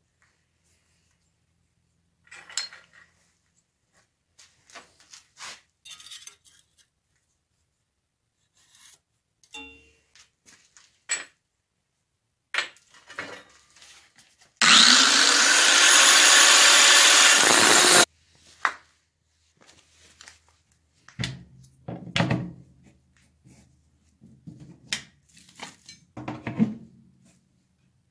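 Scattered clinks, scrapes and knocks of metalworking tools being handled, with a power tool running loudly for about three seconds near the middle, starting and stopping abruptly.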